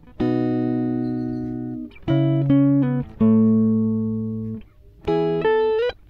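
Background music: slow plucked-string chords, each struck and left to fade, a new one about every second.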